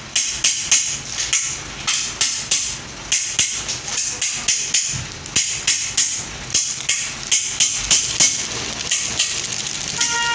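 Hand hammer striking repeatedly at a metal mounting bracket held against a wall, driving its fixings in: sharp blows at about three a second, with brief pauses.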